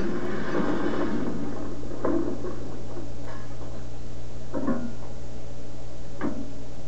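Steady low electrical hum and hiss from a television set being filmed off its screen, with a few short, faint sounds every second or so.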